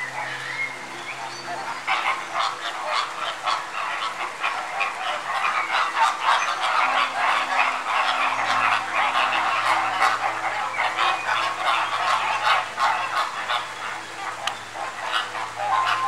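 Koi slurping and popping at the water surface as they gulp with open mouths, a dense irregular patter of small wet smacks that thickens about two seconds in and eases near the end. Soft sustained music notes sit underneath.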